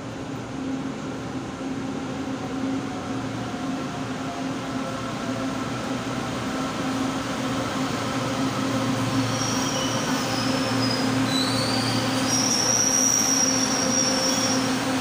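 LRT Line 2 train pulling into the station, its running hum steadily growing louder, with high-pitched brake and wheel squeal from about nine seconds in as it slows alongside the platform.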